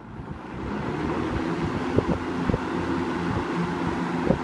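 1975 K-223-W box fan on its high setting, coming up to speed over about the first second and then running with a steady rush of air over a low motor hum. Three short clicks come through, about two, two and a half and four seconds in.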